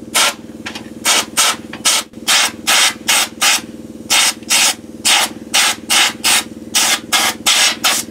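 Handheld spot sandblaster blasting rust off a steel motorcycle seat pan in short trigger bursts, each a sharp hiss of air and grit, about two to three a second. A steady hum runs underneath.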